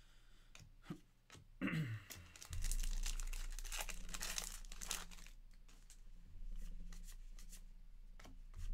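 Wrapper of a 2023 Topps Allen & Ginter baseball card pack being torn open and crinkled, a dense crackle loudest from about one and a half to five seconds in, with lighter crinkles after it.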